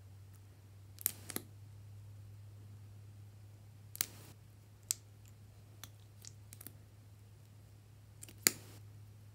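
Sharp plastic clicks and taps from blue applicator tubes and their caps being handled, uncapped and capped while colour is dabbed onto slime. There are several separate clicks, the loudest near the end, over a low steady hum.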